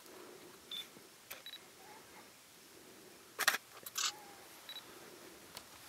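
Camera shutter firing: a quick burst of clicks about three and a half seconds in, then a couple more half a second later, with a few fainter clicks earlier.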